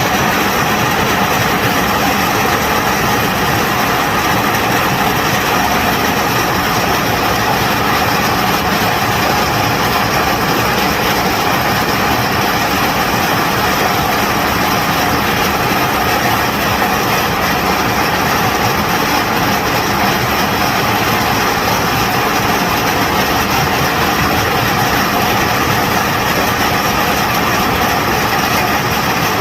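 A heavy machine's engine running steadily and loudly, with no change in pitch or load.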